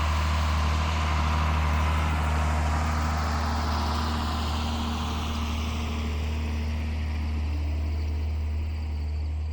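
John Deere 7610 tractor's diesel engine running steadily with a deep hum; its higher-pitched noise fades away over the last few seconds.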